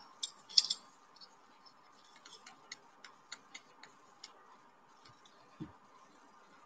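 Light, irregular clicks and ticks of a metal measuring spoon and a wooden popsicle stick tapping and scraping against each other and a plastic bowl as thick white glue is scraped off the spoon. A few sharper clicks come in the first second, and a soft thump comes near the end.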